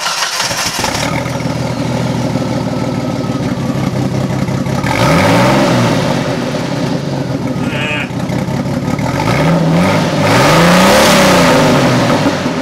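1987 Jeep engine starting on its first run after a muffler delete, with the exhaust now a welded-in pipe, then idling through the open pipe. It is revved twice, about five seconds in and again around ten seconds in, the second rev held longer.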